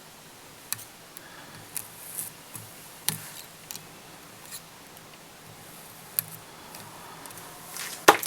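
Scattered, irregular light clicks and ticks from small fly-tying tools and thread being handled at the vise, with a sharper click just before the end.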